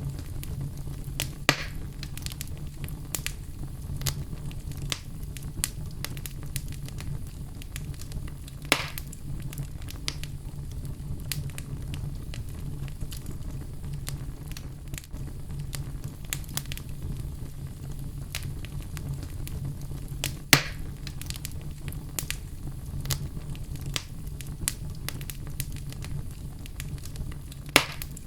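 Outdoor wood fire burning with a steady low rumble of flame, scattered crackles, and four louder pops: about 1.5 and 9 seconds in, near 20 seconds, and just before the end.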